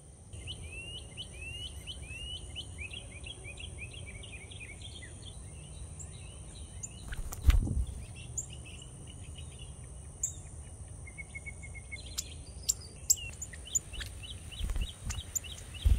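Outdoor garden ambience: a songbird sings a fast run of chirps for the first few seconds and again near the end, over a steady high insect buzz and a low rumble. A single thump about seven and a half seconds in, and a softer one near the end.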